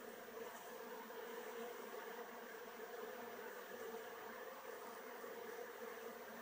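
Steady buzzing hum of many honey bees flying at a hive entrance and landing board.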